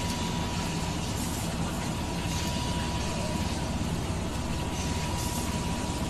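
Steady low rumble of heavy machinery, with a thin constant whine and a hiss above it.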